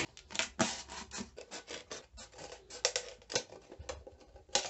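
Scissors cutting through a thin plastic drinks bottle along a marked line: a quick run of short, irregular snips.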